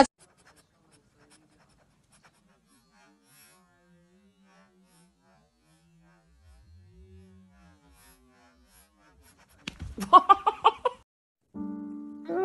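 Near silence for most of the time, then about ten seconds in a short run of quick sobbing voice pulses. Near the end a man's long, held wailing cry begins.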